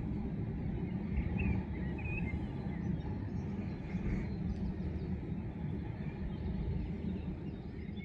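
Steady low outdoor rumble with a few faint bird chirps about one to two seconds in.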